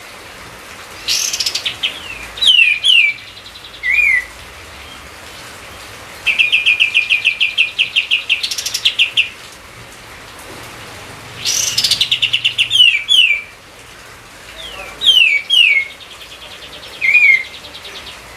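A songbird singing in repeated phrases of sharp down-slurred whistled notes and rapid trills of about ten notes a second, over a steady faint hiss.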